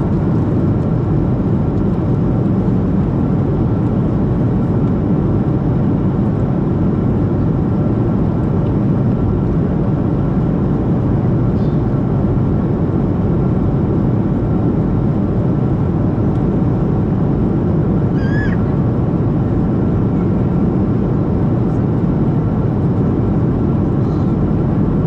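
Steady cabin noise inside a Boeing 737-700 airliner in flight, on descent: a dense rumble of airflow and its CFM56 engines, with a faint steady whine. A brief high-pitched chirp sounds about two-thirds of the way through.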